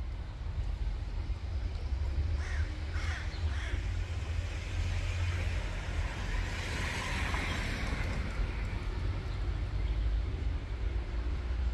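A crow cawing a few times, about two to three and a half seconds in, over a steady low rumble. A vehicle passes about halfway through.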